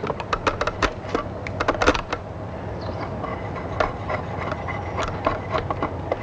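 A drawknife shaving an oak ladder rung clamped in a shaving horse: quick, irregular scraping and clicking cuts, densest in the first two seconds, then sparser, over a steady low hum.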